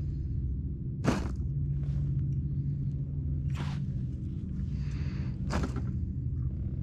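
Water slapping against a kayak hull: three short splashy slaps, the first and loudest about a second in, then about three and a half and five and a half seconds in, over a steady low rumble.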